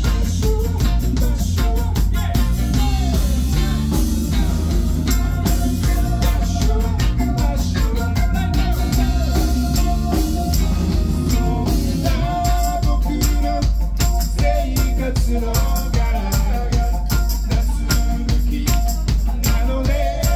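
A live band playing loud amplified music with a steady drum-kit beat, electric guitar and keyboard.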